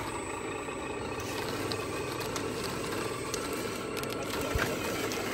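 Radio-controlled lowboy truck hauling a model excavator: a steady mechanical running noise from its motor and drivetrain, with a brief low thump about four and a half seconds in.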